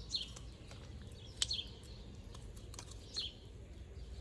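Small birds chirping, three short high falling notes about a second and a half apart, over scattered sharp clicks and cracks of a pine cone being broken apart by hand. The loudest crack comes about a second and a half in.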